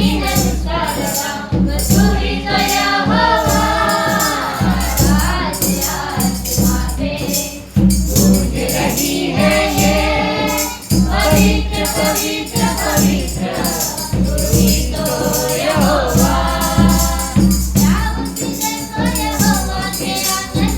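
Hindi Christian worship song: voices singing a wavering melody over a band backing with a steady low beat and tambourine.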